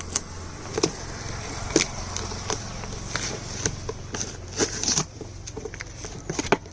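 Irregular clicks, taps and crackles of the phone's retail box and packaging being handled, over a steady low hum.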